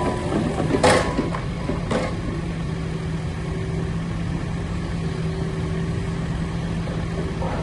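Cat 308E2 CR excavator's diesel engine running steadily, with two sharp metallic knocks about a second apart near the start.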